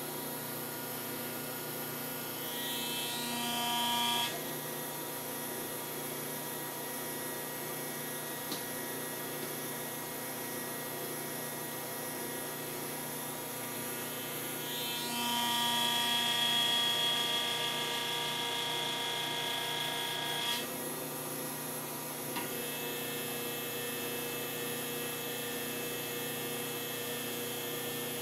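Louis Small DTY 40 ductility tester running with a steady machine hum. Twice, about three seconds in and again from about fifteen to twenty seconds, a whine rises in pitch and grows louder as the machine loads the metal test strip, then cuts off suddenly.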